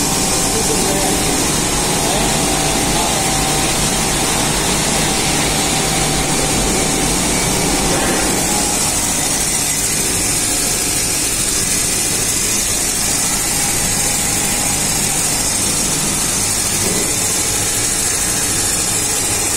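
CNC roll grinding machine running steadily as it grinds a TC roll: the grinding wheel's motor hums with a steady high hiss, and coolant splashes at the wheel.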